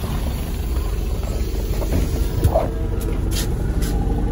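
MAZ-203 city bus engine running at a standstill with a steady low rumble, close by. A few sharp clicks come near the end.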